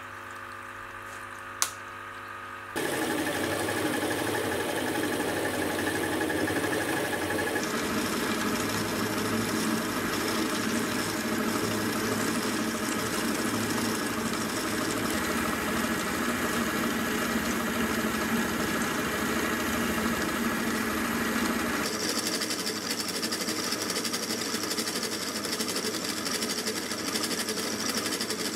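Sieg X2.7L mini milling machine: the spindle motor first runs with a steady whine, then from about three seconds in an end mill cuts a slot in a metal block under flood coolant, giving a steady, dense grinding-and-hissing cutting noise. The tone of the cut changes a few times as the cut and cutter change, ending on a dovetail cutter.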